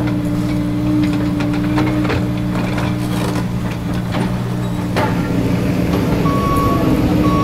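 Kobelco SK200 hydraulic excavator's diesel engine running steadily under load while it digs soil, with scattered knocks and clanks from the bucket. Near the end, a high electronic warning beep starts, sounding on and off about twice a second.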